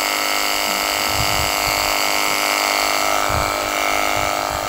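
Small electric pump motor of a portable car washer running steadily with a high whine while spraying water. A few short low rumbles come and go underneath.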